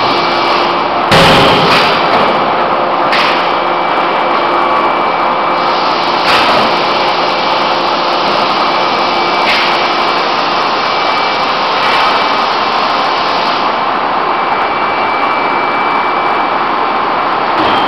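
Anyang 80 kJ CNC hydraulic die forging hammer striking hot steel in its dies: a heavy blow about a second in, then lighter blows spaced a few seconds apart through the first two-thirds. Over all of it runs a loud, steady drone of shop machinery.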